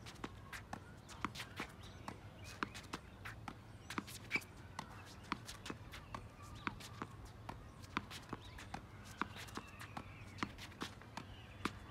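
Tennis ball rallied against a practice wall with slice strokes: a steady run of sharp knocks, several a second, as the racket strings meet the ball, the ball hits the wall and it bounces on the hard court.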